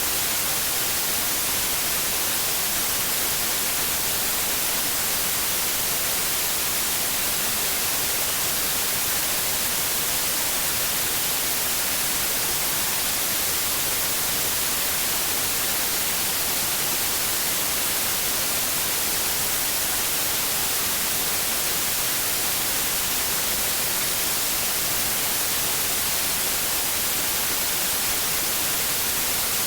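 Steady white noise: an even, unchanging hiss, brightest in the high end, at a constant level.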